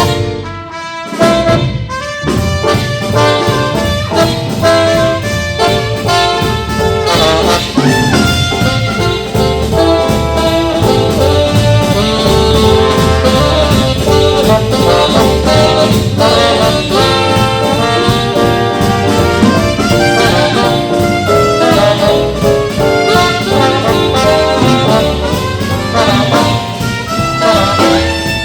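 Live swing and early R&B band playing an instrumental passage, horns (trumpet and saxophone) carrying the tune over drums and bass with a steady dance beat. A short break about a second in, then the full band comes back in.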